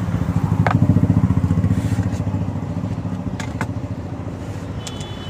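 A motorcycle engine running close by with a fast, even pulse, fading steadily as it moves off. A few light clicks sound over it.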